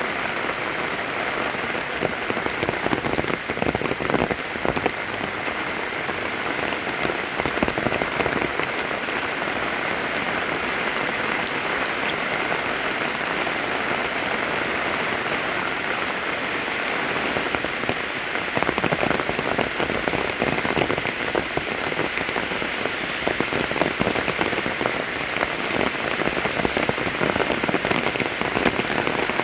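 Steady rain falling, with dense patter of drops striking surfaces close by; the heavier spells come a few seconds in and again in the second half.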